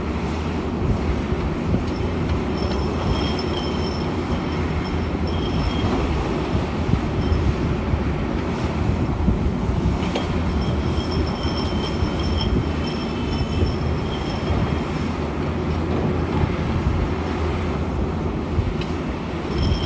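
SANY SY500H 50-ton excavator working, its heavy diesel engine and machinery giving a steady, loud rumble, with high-pitched metallic squeals coming and going.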